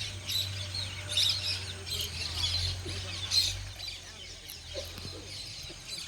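Many small birds chirping: a dense chatter of short, high calls, louder in bursts during the first half.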